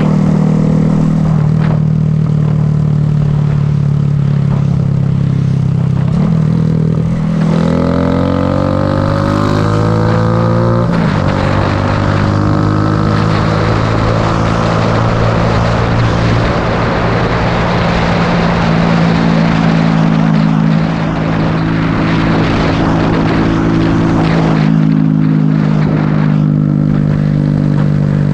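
Motorcycle engine running under way, heard over wind rushing past the helmet camera. About seven seconds in, the engine note climbs steadily for a few seconds as the bike accelerates, then drops suddenly at an upshift and holds steady again.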